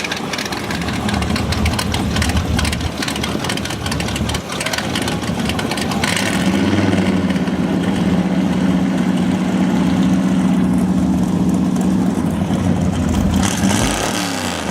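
A vehicle engine running at a car show: rough and uneven at first, then held at steady revs for several seconds, with the revs dropping near the end.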